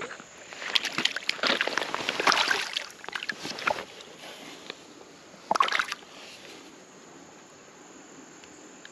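Hooked smallmouth bass splashing at the water's surface as it is played in. A run of irregular splashes lasts about three seconds, and one sharp splash comes about five and a half seconds in.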